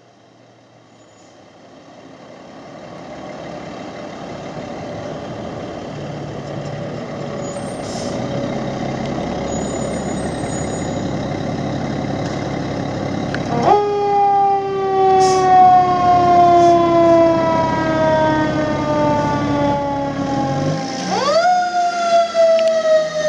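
Fire engine's diesel engine growing louder as the truck pulls out. About halfway through, its Federal Q2B mechanical siren cuts in, wailing at a high pitch and slowly winding down. Near the end the siren winds up again, then coasts down once more.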